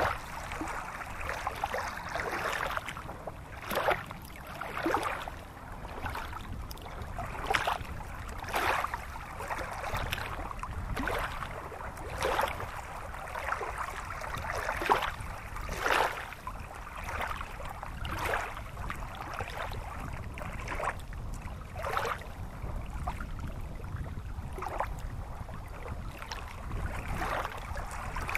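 Shallow stream running over rocks: a steady rush of water with irregular gurgles and splashes every second or two, over a low rumble.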